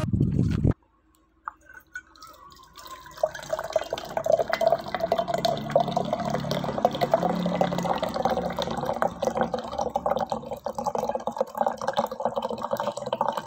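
A thin stream of water poured from above into a tall tumbler, a steady splashing pour that starts about three seconds in after a few faint knocks.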